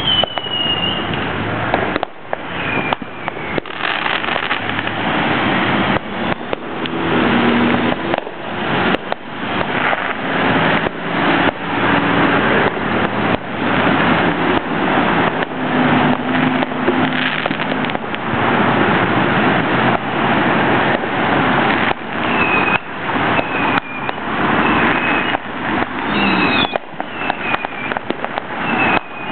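Dense, continuous barrage of fireworks going off, a rapid overlapping crackle of bangs and pops with no pause. Short high falling whistles come through at the start and again several times in the last few seconds.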